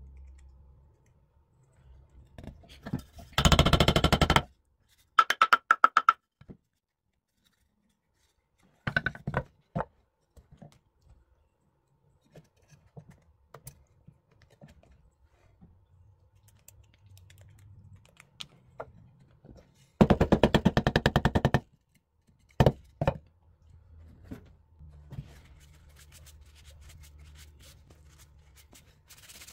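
Two loud bursts of rapid mechanical rattling from a workshop tool, the first about a second long and the second a little longer, with scattered clicks and knocks between.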